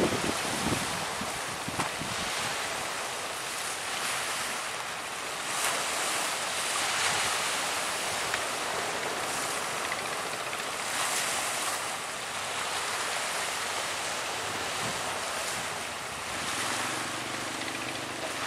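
Sea waves and strong wind: a steady rushing hiss that swells and eases every few seconds. A faint low hum comes in near the end.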